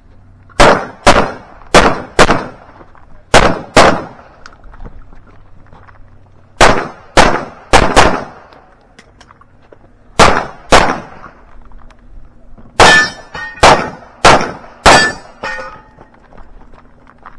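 Pistol shots fired in quick pairs about half a second apart, a competitor shooting an IDPA stage, with pauses between the pairs while moving or changing targets. Near the end a run of shots is each followed by a brief metallic ring.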